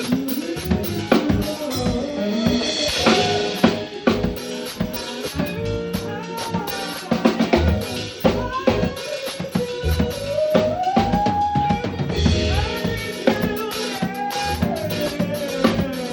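Live band playing an instrumental passage: a drum kit with bass drum, snare and rimshots drives a steady beat under a sliding, bending melodic lead line.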